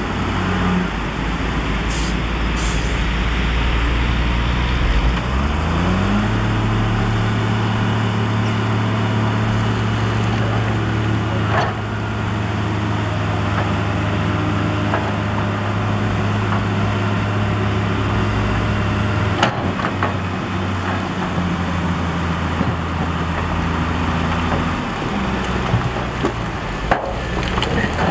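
Heavy diesel engine of earthmoving machinery running under load, revving up about five seconds in, holding, then easing off in steps in the second half. Two brief hisses come about two seconds in, with an occasional clank.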